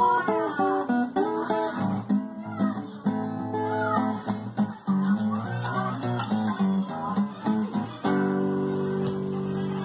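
Acoustic guitar played as a run of plucked notes, moving through a short melodic passage. About eight seconds in it settles on a strummed chord that rings on and then cuts off abruptly.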